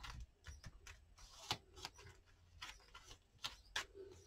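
Faint, irregular light clicks and taps of paper card pieces being handled and set down on a work surface.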